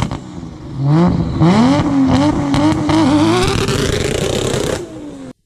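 Car engine revving hard during a burnout. Its pitch climbs steeply about a second in, then holds high and wavers for a few seconds before dropping off near the end.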